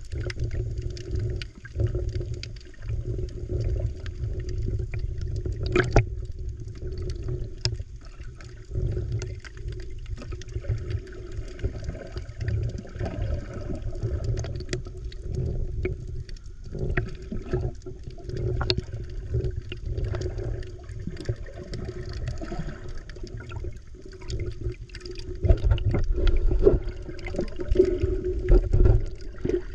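Underwater sound picked up through an action camera's waterproof housing: muffled rushing and sloshing water with a steady low rumble, scattered sharp clicks and ticks, and louder low thumps near the end.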